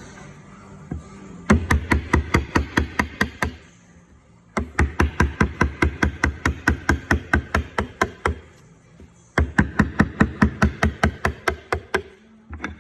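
Rapid, even knocks of a tool striking wood during woodcarving, about seven a second, in three runs of two to four seconds each with short pauses between them.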